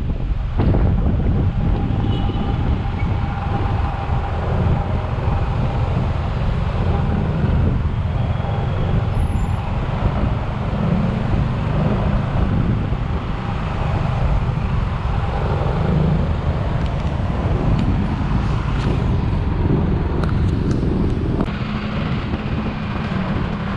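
Motorcycle riding in city traffic: its engine running under a steady rumble of road and traffic noise from surrounding vehicles.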